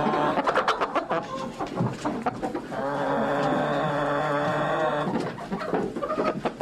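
Chickens clucking in short calls, with one long held call of about two seconds in the middle, then clucking again.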